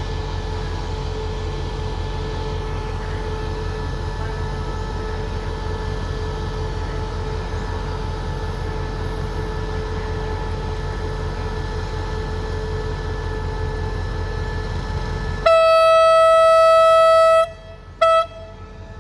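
A diesel locomotive idling with a steady low throb, then its horn sounds one long blast of about two seconds about 15 s in, followed by a short toot: the departure signal before the train pulls out.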